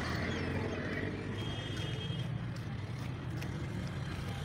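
Steady low rumble of a running motor vehicle engine, with a brief faint high tone about a second and a half in.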